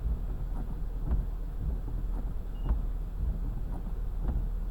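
Car driving, heard from inside the cabin: a steady low road-and-engine rumble with short knocks about twice a second.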